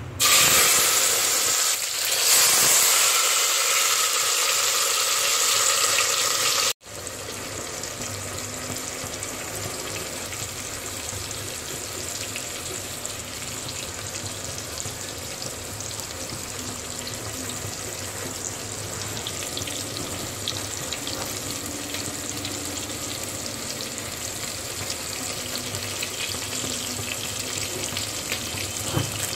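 Tomatoes dropped into hot oil in an aluminium pressure-cooker pot, sizzling loudly. After a sudden break about seven seconds in, the tomato curry frying with a steady, quieter sizzle.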